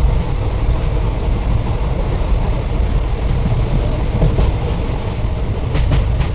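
Train running on the rails, a steady low rumble with a few sharp clicks near the end.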